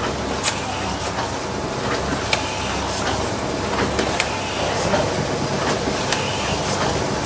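Automatic book sewing machine running: a steady mechanical hum with a rhythmic clack about once a second.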